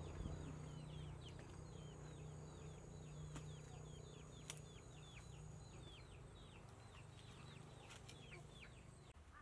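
Faint, rapid run of short downward chirps, three or four a second, from birds, over a thin steady high tone.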